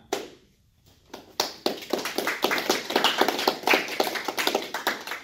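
A small group clapping: a brief round of applause of many overlapping hand claps that starts about a second in. A single sharp click comes just before it.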